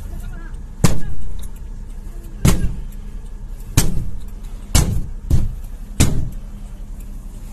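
Hands banging hard on a car, six heavy blows at uneven intervals, over a car engine idling with a steady low hum.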